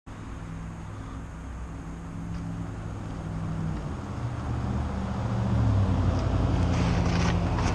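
A low, steady engine drone that shifts in pitch about halfway through and grows louder. Near the end come brief rushes of hiss as the approaching mountain bike rolls over rock.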